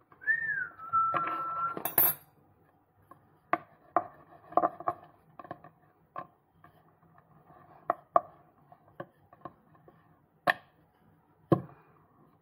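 Scattered light knocks and taps of a wooden rolling pin and hands on a wooden board as dough balls are handled and rolled out, with a sharper click about two seconds in. It opens with a short high tone that dips and then holds for about a second and a half.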